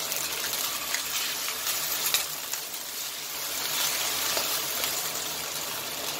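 Broccoli and chicken nuggets sizzling in a hot wok with a little added water, stirred and tossed with a spatula that clicks against the pan a few times.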